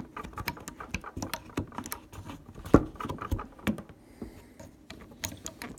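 Small metal rifle parts clicking and tapping irregularly as the hammer and trigger assembly of a Marlin 336 lever-action is worked into place and will not line up. The loudest is a single sharp knock just under three seconds in.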